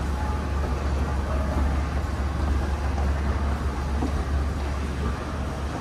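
Steady low rumble over a background hiss, with no distinct events.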